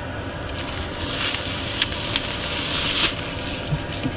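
Thin plastic odour-proof bag rustling and crinkling as it is pulled out and handled, loudest between about one and three seconds in, with a few small clicks.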